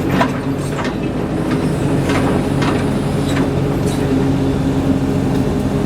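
Engine of a bladed earthmoving machine running steadily, with scattered metal clanks and rattles.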